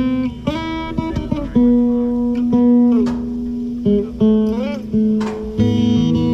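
An acoustic guitar played solo, held notes and chords ringing out, a few of them bending up and down in pitch.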